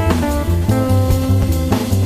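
A recorded song playing: drum kit, bass and guitar at a steady beat.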